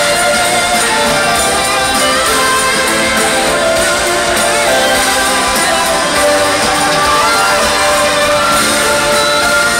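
Live rock band music played in a large hall, with guitar and sustained chords, loud and steady.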